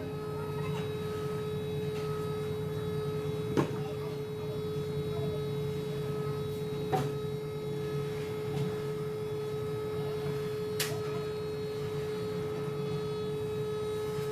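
Steady machine hum with one constant tone, broken by three single sharp knocks spread through it.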